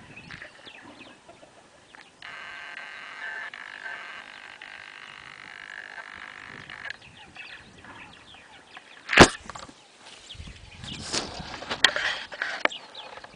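A steady, rapidly trilling animal chorus from about two seconds in until about seven seconds. About nine seconds in there is a single loud, sharp knock, and near the end scattered rustling and knocks.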